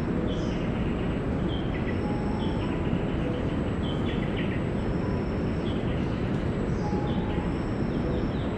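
Steady low rumbling outdoor noise, with birds repeatedly calling short high notes over it about once a second.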